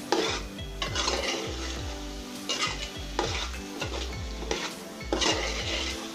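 A spoon stirring and scraping vegetables and masala frying in oil in a large aluminium pot, with a steady sizzle. The scrapes against the pot come in irregular strokes, about one a second.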